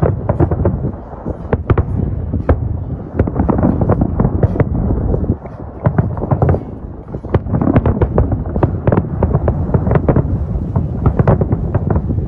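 Aerial firework shells bursting in a dense barrage, many bangs and cracks in quick succession, with a short lull about five and a half seconds in.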